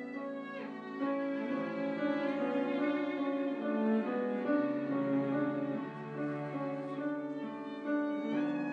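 Piano trio playing classical chamber music: violin and cello holding long bowed notes over piano.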